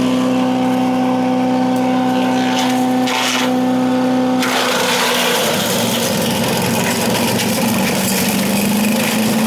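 VEVOR wood chipper's 212 cc single-cylinder gasoline engine running steadily. About four and a half seconds in, a harsh grinding noise starts and the engine pitch drops, as the engine bogs under the load of material going through the chipper. The pitch climbs slowly back near the end.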